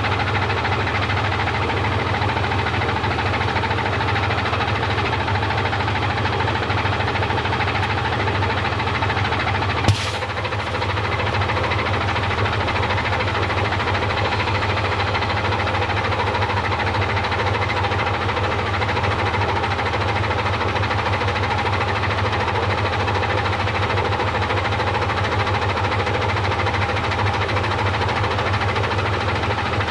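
Washing machine running with a steady, loud hum, broken by one sharp click about ten seconds in.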